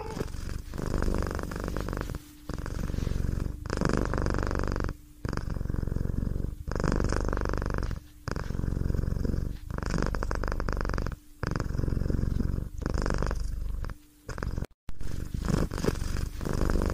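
Domestic cat purring steadily, in even bouts of about a second or so with a short break between each, as it breathes in and out.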